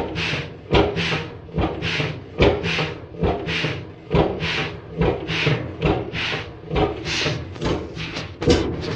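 1928 Beijer 13 hp single-cylinder two-stroke hot-bulb oil engine running at zero rpm: with the injection pump turned right down, each weak firing only bounces the piston back on compression instead of turning the flywheel over. A regular rhythm, roughly two a second, of rasping hisses from intake air sucking in through the reed valve, with a sharp knock at each firing.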